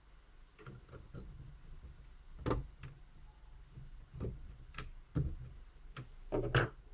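Scattered light clicks and taps from hands working inside a laptop, unlatching small ribbon-cable connectors and handling plastic parts. The clicks come at irregular intervals, mostly in the second half.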